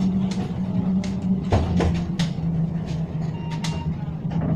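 Inside a tram: a steady low hum from the tram, with a few sharp knocks and clacks in the middle and a brief electronic beep near the end.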